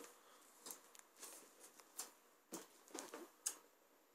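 Faint handling of a cardboard box: a scatter of light taps, clicks and rubs as hands grip and turn it.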